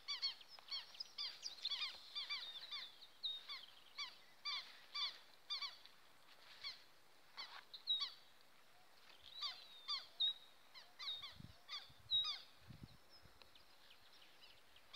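A flock of ducks calling with short, repeated calls, about two a second at first, thinning out to scattered calls later.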